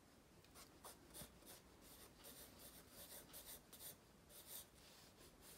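Pencil sketching on paper: a faint run of short, quick scratching strokes as lines are drawn.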